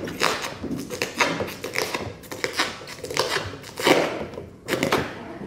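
Protective plastic wrap being pulled and peeled off a car roof: irregular crinkling and crackling rustles, with a couple of louder crackles about four and five seconds in.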